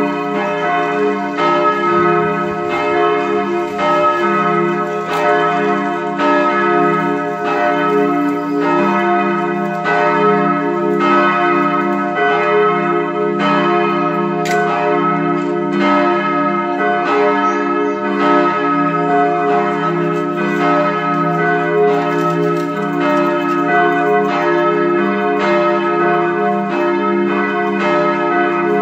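Peal of cast-steel church bells from the Bochumer Verein, swinging and striking in a steady, overlapping rhythm, their strokes coming under a second apart with long ringing tones between.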